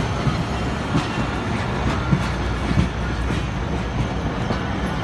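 Passenger train coaches rolling past close by: a steady rumble of wheels on rail with irregular clacks and knocks from the wheels.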